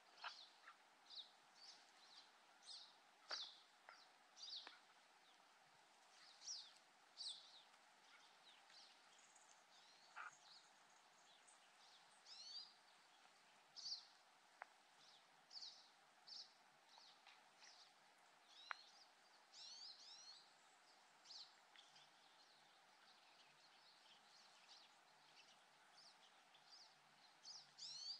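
Faint, high-pitched chirps from small birds, short calls repeated at irregular intervals about once a second, over a quiet hiss, with a few faint clicks.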